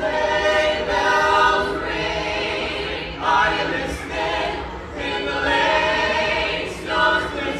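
A small mixed group of carolers singing a Christmas song a cappella in harmony, a new song beginning suddenly and going on in phrases with short breaths between them.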